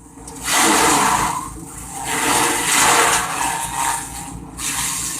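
Grass chopper machine running with a steady hum, broken by three loud rushing surges as grass is fed in and shredded.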